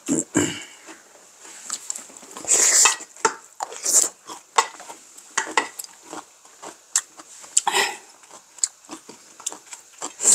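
Wooden spoons clicking and scraping against a large metal bowl of bibimbap, in many short knocks, with close-up chewing and other eating mouth sounds.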